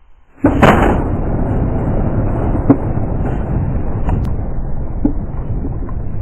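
A sudden loud blast from a 12-gauge shotgun about half a second in, followed by a long, steady rumble with a few faint clicks in it.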